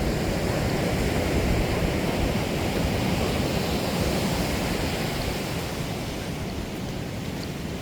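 Steady rushing of ocean surf mixed with wind, a constant deep noise that eases a little near the end.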